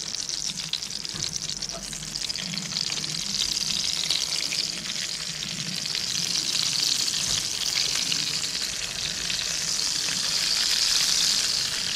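Cabbage rolls sizzling in hot bacon fat and clarified butter in an enamelled Dutch oven as they are laid in one after another; the steady frying grows a little louder toward the end.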